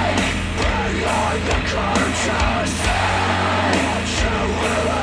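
A death metal track with distorted guitars, drums and vocals, played over Bluetooth through a pair of Klipsch The Fives powered speakers set to a vocal EQ preset. It plays loud and dense throughout, with a steady pounding of low drum hits.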